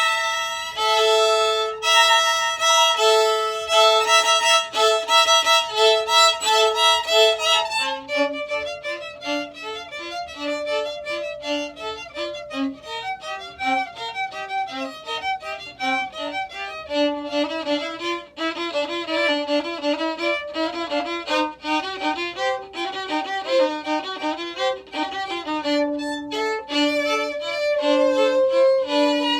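Violin playing a tune, starting abruptly with a held high note over repeated lower notes, then moving into quicker, changing notes about eight seconds in.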